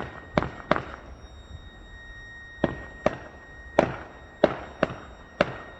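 Fireworks bursting: about nine sharp bangs at uneven intervals, each followed by a short echoing tail.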